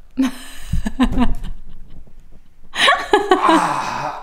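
People laughing in two short bouts, with wordless vocal sounds rather than speech.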